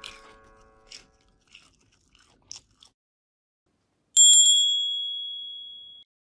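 A single bright bell ding about four seconds in, ringing out and fading over about two seconds: the notification-bell sound effect that goes with an on-screen subscribe button. Before it come a few faint crisp clicks.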